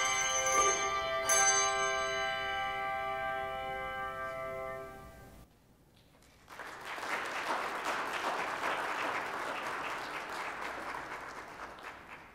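Handbell choir's final chord ringing out, struck again about a second in and slowly dying away. After a second of silence the congregation applauds, the clapping fading near the end.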